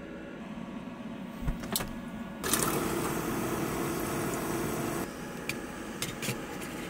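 Jetboil camp stove burner hissing steadily on its gas canister. The hiss comes in suddenly about two and a half seconds in, after a couple of clicks, and drops away suddenly about two and a half seconds later.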